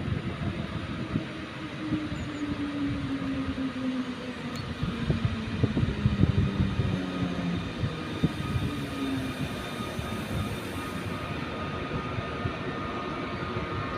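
Newag Griffin electric locomotive (EU160) with an Intercity train pulling slowly into the station. Its drive gives a whine that falls in pitch as it slows, over the rumble and knocking of wheels on the rails, and steadier high tones come in near the end.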